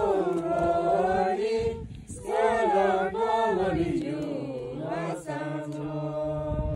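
People singing a song together in long, wavering held notes, with a short break for breath about two seconds in and a lower voice holding a steady note under the melody near the end.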